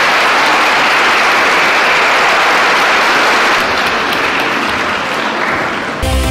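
Audience applauding steadily, a dense even clapping. About six seconds in it cuts off abruptly and music begins.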